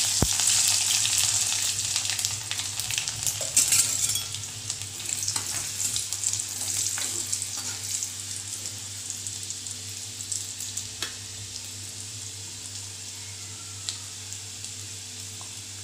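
Chopped garlic sizzling in hot oil with cumin seeds in a kadai, loud at first and settling to a quieter, steady fry after about four seconds. A few light taps of a spoon stirring it.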